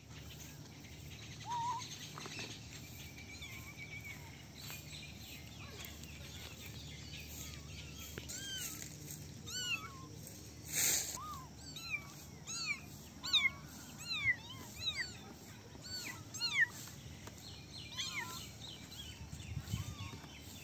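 A litter of young kittens mewing: short, high-pitched calls that rise and fall, a few at first, then coming thick and fast from about eight seconds in. A brief burst of noise comes about halfway through.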